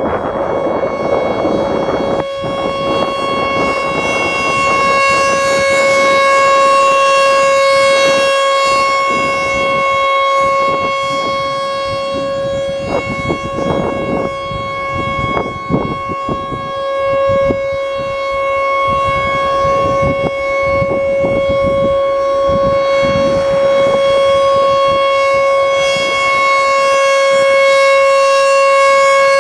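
American Signal T-128 rotating electromechanical warning siren sounding a full alert: one steady, unchanging tone, loud and swelling and dipping in loudness as the siren head turns.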